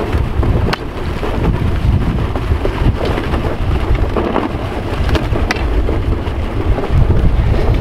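Wind buffeting the microphone: a loud, steady rumble, with a few sharp clicks scattered through it.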